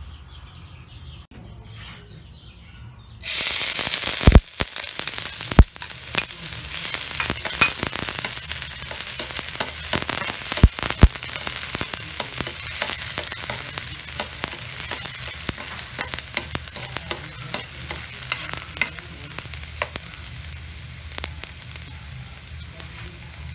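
Chopped red onions hit hot oil in a steel wok about three seconds in and sizzle loudly, the sizzle easing a little toward the end. A spatula stirring them clacks sharply against the pan several times.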